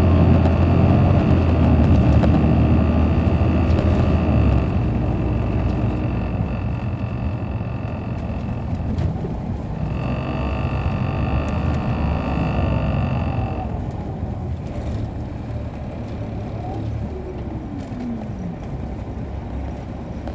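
Caterpillar C13 ACERT diesel engine of a 2007 MCI D4500CL coach heard from on board, running hard for the first few seconds, then easing off as its low drone slowly fades. A steady high whine runs alongside, breaks off briefly, and stops about two-thirds of the way in.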